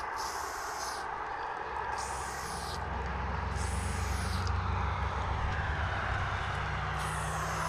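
Aerosol spray paint can hissing in four short bursts while a graffiti outline is sprayed, over a steady low rumble.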